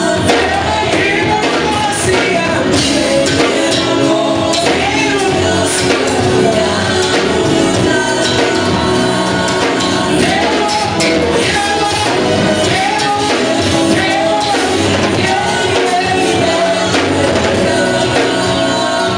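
A vocal group singing live through a PA: a male lead voice with mixed male and female backing singers, over a steady amplified instrumental accompaniment with a beat.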